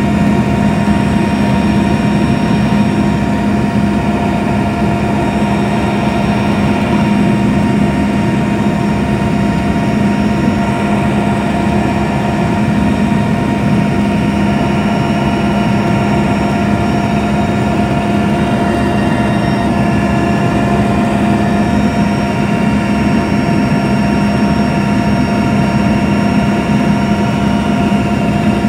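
Helicopter cabin noise in flight: a loud, steady drone of engines and rotor with several constant whining tones that never change in pitch.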